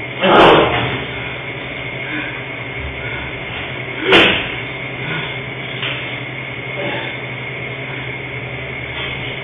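Two loud bangs about four seconds apart, with a few fainter knocks, over a steady electrical hum.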